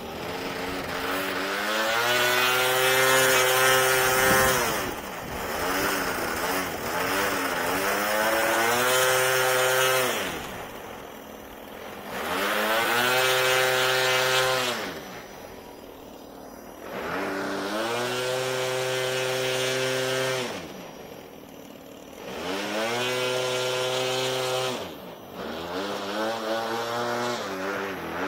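Electric motor and propeller of a VQ Model Bonanza RC airplane whining overhead in about five passes, each growing louder and then dropping in pitch as the plane goes by.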